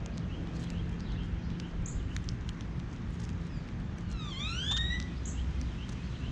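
Wild birds calling: scattered short chips and ticks, then a quick cluster of rising whistled notes about four to five seconds in, over a steady low rumble.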